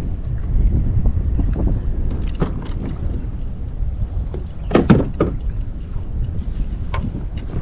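Wind rumbling on the microphone of a kayak on open water, with water lapping and scattered small knocks on the hull. About five seconds in there is a short, louder burst of sound.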